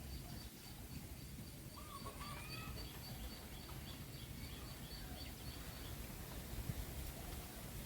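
Faint outdoor ambience: birds chirping over a steady low rumble, with a high chirp repeating about four times a second and a few short calls about two seconds in.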